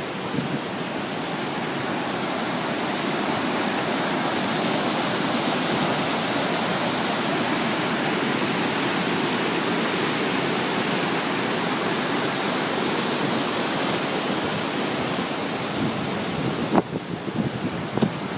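Steady, full roar of Shōmyō Falls, a very tall multi-tiered waterfall, heard as an even wash of falling water. Near the end the roar thins a little and a couple of sharp knocks are heard.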